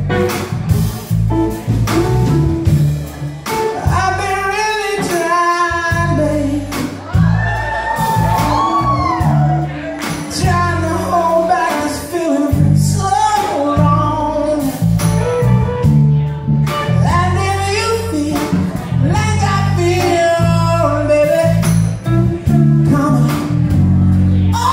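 Live band performing: a male singer singing into a microphone, with held, wavering notes, over electric guitars and drums.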